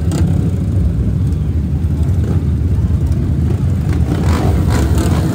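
Many trail motorcycle engines running together, a steady dense rumble.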